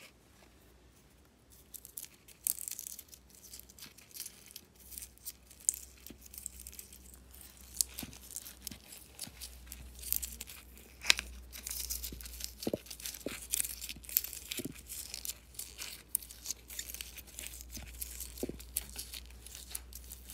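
Foam-bead slime (floam) squished and poked with fingers in its plastic tub, giving an irregular crackling and popping that starts about two seconds in, with a few sharper snaps.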